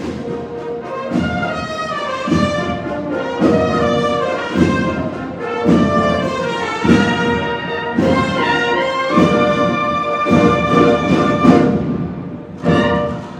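Semana Santa cornet-and-drum band playing a processional march: brass cornets in sustained harmony over drum strokes about once a second, easing off near the end before a final loud chord.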